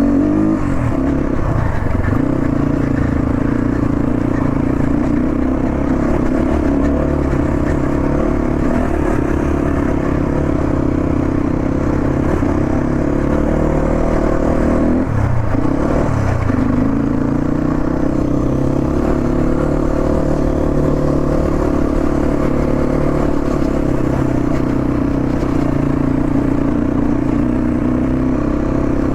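Motorcycle engine running steadily while riding, with a brief drop and rise in engine note about halfway through.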